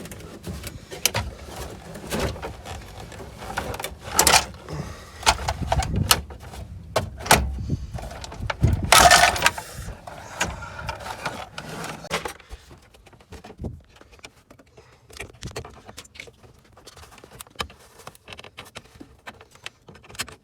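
Knocks, clicks and rattles of a Jeep Cherokee XJ's plastic center console being worked loose and pulled up, with two louder bursts about four and nine seconds in, then quieter scattered ticks.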